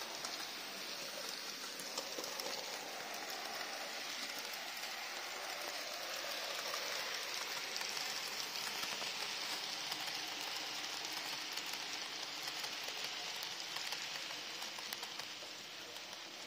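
TT:120 model Peak diesel locomotive and its coaches running on the layout track: a steady whirring hiss of the small motor and wheels on the rails, with scattered light clicks.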